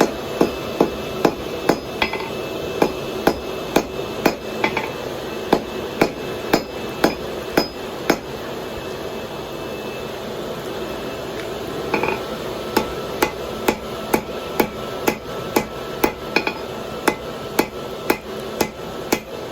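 Hand hammer striking hot steel on an anvil in steady blows about two a second, forge-welding the fluxed seam of a fire poker. The blows pause for about four seconds near the middle, then resume, over a steady background hiss.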